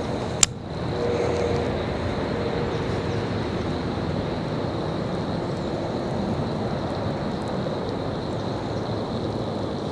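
Abu Garcia baitcasting reel: one sharp click about half a second in as the handle is turned to engage the spool after a cast, then the reel being cranked steadily to retrieve a topwater lure, under a steady rushing noise.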